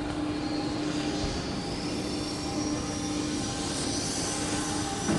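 Steady machine hum of a CNC panel bender, with a low held tone and a faint high whine that drifts slowly up and down.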